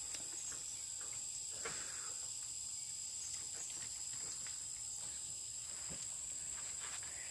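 Steady high-pitched insect chorus, with a few faint ticks and taps.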